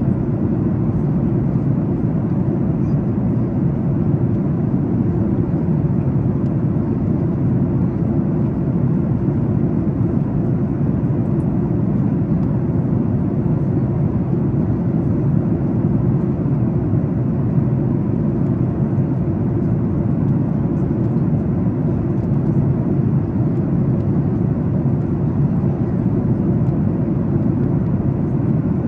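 Steady cabin noise of a Boeing 737 MAX 8 at cruise, from an economy seat: airflow over the fuselage and the drone of the CFM LEAP-1B engines, mostly low in pitch and unchanging.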